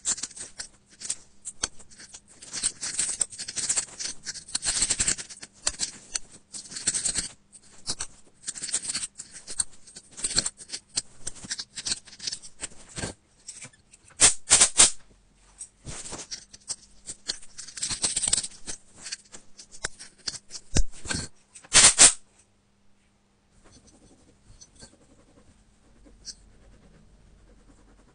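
Metal pick scraping and prying packed dirt out of a phone's speaker grille holes: dense, fast scratching and clicking in bursts, which stops about 22 seconds in, leaving only a few faint taps.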